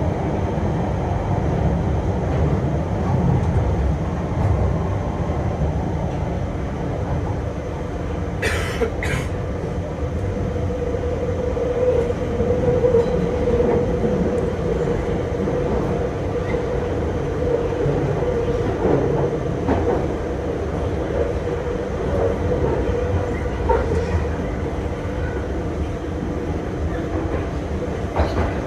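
Central line tube train running through a tunnel: a loud, steady rumble of wheels on rails, with a droning tone coming in about eight seconds in and two brief high hisses at that point.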